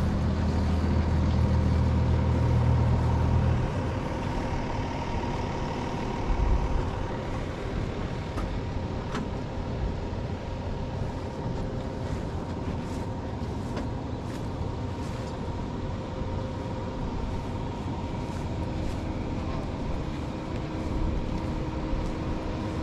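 A nearby engine running at a steady idle, which drops away abruptly about three and a half seconds in. It leaves a quieter, steady mechanical rumble with a faint steady whine, and one low thump a little later.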